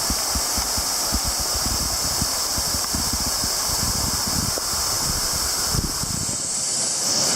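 Waterfall pouring, heard from underneath the falls: a steady rush of water with irregular low thumps from falling water, which die away about six seconds in.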